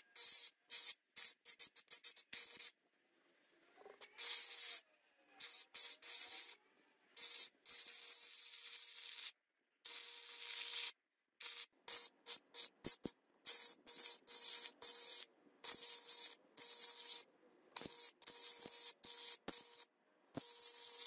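Stick (arc) welding on a steel hammer head: the arc crackles and hisses in bursts as it is struck and broken, a string of quick short strikes first, then longer runs of a second or two, with a faint steady hum under the crackle.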